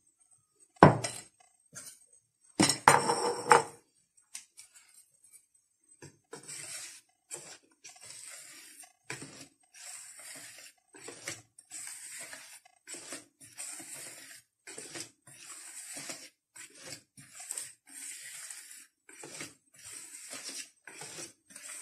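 A metal spoon working in a plastic mixing bowl. There is a sharp clink about a second in and a short clatter around three seconds. From about six seconds on come even scraping strokes, a little over one a second, as flour is gently folded into whisked-egg cake batter.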